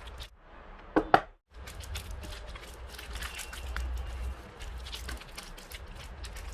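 Light clicks and knocks of handling things, over a low steady hum, with two sharper knocks about a second in.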